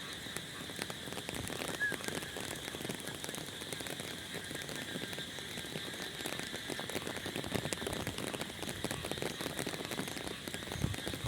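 Heavy rain falling, a steady hiss dotted with the patter of many small drops, over a faint constant high-pitched note.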